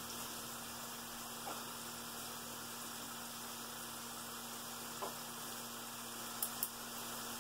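Food frying in a skillet, a steady low sizzle under a constant electrical hum, with a few faint clicks from a small grinder being handled.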